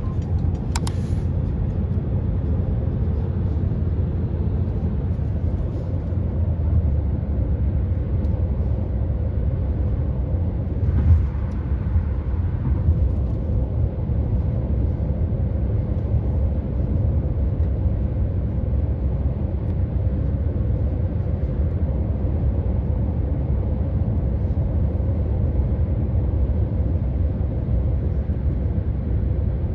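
Steady low rumble of a car driving, heard from inside the cabin: engine and road noise. A short louder knock about eleven seconds in.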